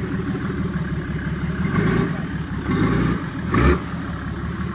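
Rock-crawler buggy's engine running under load as it climbs rock ledges, revved in three short bursts; the last, about three and a half seconds in, is the loudest.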